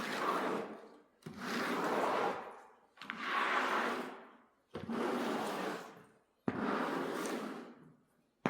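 Repeated wiping strokes on a car's body, about one every one and a half to two seconds, each starting sharply and fading out as the stroke ends.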